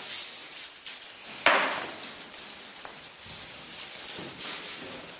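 Aluminum foil crinkling and rustling as a foil-lined cardboard box is handled and turned over, with a sharp knock about one and a half seconds in.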